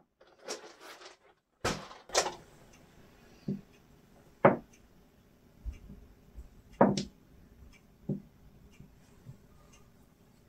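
Small dice knocking and clicking on a tabletop as they are picked up, set down and moved into a row by hand: separate light taps at uneven intervals, the sharpest about four and a half and seven seconds in.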